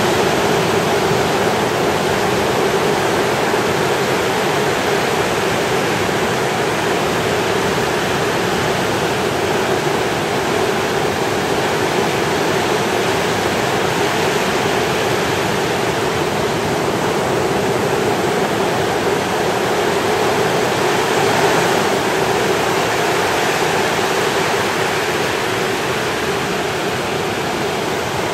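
Ocean waves breaking on a beach: a steady, unbroken wash of surf with no single crash standing out.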